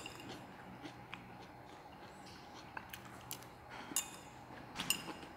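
Faint clinks of chopsticks against a ceramic plate: a few light ticks, then two brighter ringing clinks near the end.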